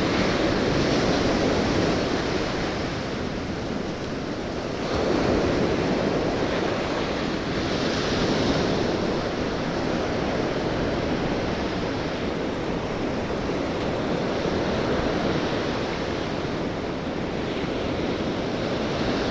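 Ocean surf breaking and washing up a beach in a continuous wash that swells now and then, with wind buffeting the microphone.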